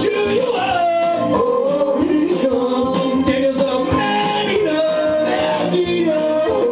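Karaoke: men singing into microphones over a loud recorded backing track, holding and sliding between notes.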